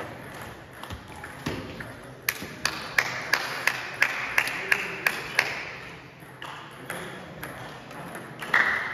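Table tennis ball clicking on bats and table in a large hall: an even run of light, sharp clicks at about three a second through the middle, and the first hits of a new rally near the end.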